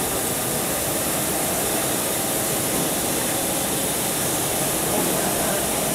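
Steady, even hiss of running machinery on a factory floor.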